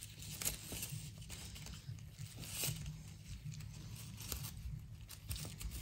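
Burlap drawstring sack and its paper gift tag rustling and crinkling as fingers work the cord loose, with scattered small scratchy clicks.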